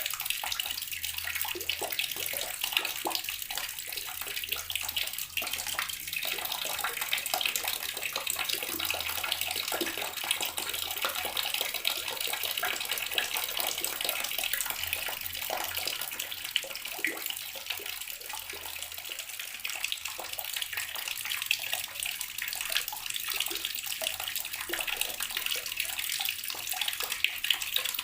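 Water running steadily from a tap and splashing into the water below, a continuous hissing splash with no change.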